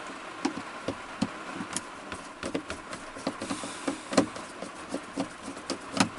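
Heavy rain falling: a steady hiss with many large drops ticking irregularly, several a second, and a few louder taps about four seconds in and near the end.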